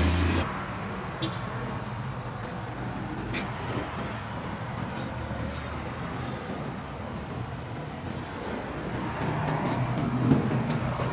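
Steady low rumble of a motor vehicle, growing a little louder near the end, with a couple of faint clicks.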